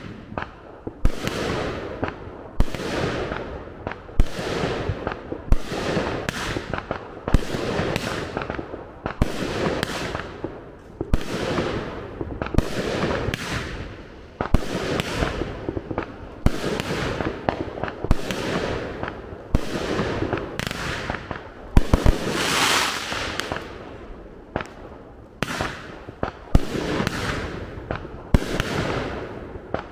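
Consumer firework cake firing shot after shot, about one bang a second, each followed by a crackling tail; the loudest burst comes late on.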